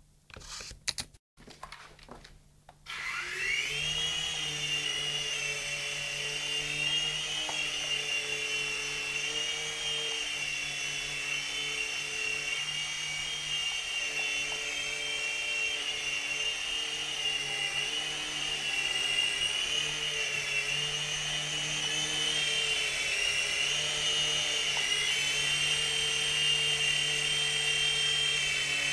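DFD Fire Wolf F103 micro RC helicopter's electric motors spooling up with a quick rising whine about three seconds in, after a few light clicks, then running at a steady high whine that wavers slightly in pitch.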